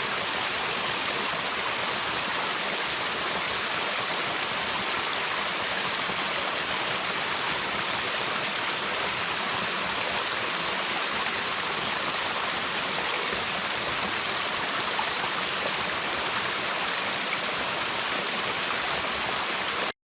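Waterfall: a steady, even rush of falling water that cuts off suddenly near the end.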